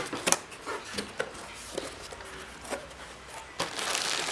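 A cardboard box being opened by hand: a couple of sharp knocks, then light scrapes and clicks of handling, and from about three and a half seconds in a dense crinkling of packaging being pulled open.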